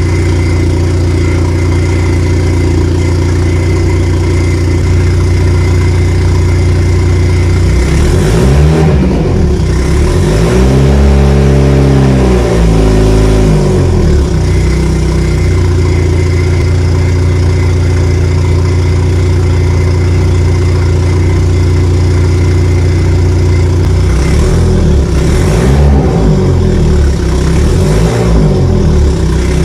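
Turbocharged Honda Civic engine, D15Z4 block with a D16Z6 SOHC VTEC head, running loud on its first start with the exhaust not fully connected: it idles, is revved up and down twice about eight seconds in, idles again, then is revved several times near the end. At idle a whistling, grinding noise sounds that goes away when revved, which the owner thought sounded like an alternator bearing.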